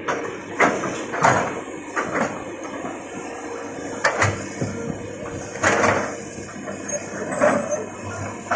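Hitachi hydraulic excavator's diesel engine running steadily, with half a dozen sharp knocks and clanks from the machine as it swings and works.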